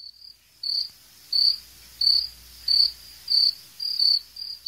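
Cricket chirping sound effect: a steady run of short, high chirps, about three every two seconds, coming slightly faster near the end. This is the stock 'crickets' gag for an empty, silent room.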